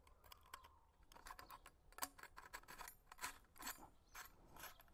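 Faint, irregular small clicks and scrapes of a metal watering lance being worked by hand as its spray rose is taken off.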